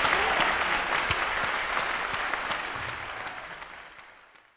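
Concert audience applauding, a dense patter of many hands clapping that fades away steadily to nothing near the end.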